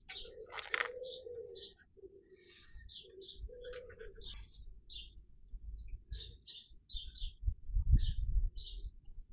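Small birds chirping in quick short calls throughout, with a pigeon cooing low in the first few seconds. Low bumps and rustles about eight seconds in, the loudest sounds, as the flexible conduit and motor wires are handled at the motor's terminal box.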